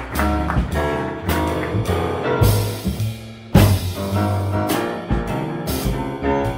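Live small-band jazz: a grand piano taking the lead over bass and drum kit, with a loud drum accent about three and a half seconds in.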